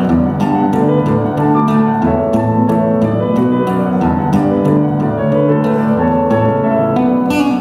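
Live instrumental music: a melodic piece with sustained chords and a steady beat of short notes.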